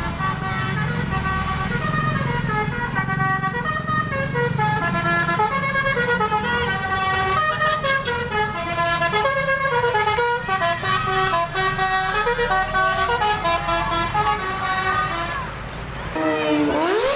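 Bus 'telolet' multi-tone horn playing a tune of short stepped notes over the low running of the bus engine. Near the end a rising siren-like glide sounds.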